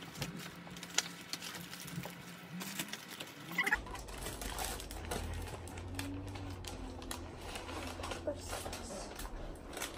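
Handling noise: rustling of an MRE heater's paper-and-plastic packaging and of clothing close to the microphone, with a sharp click about a second in. From about four seconds in, a sweatshirt brushing against the microphone adds a steady low rumble.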